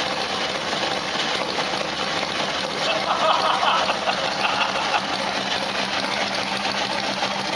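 An engine idling steadily, with a constant low hum.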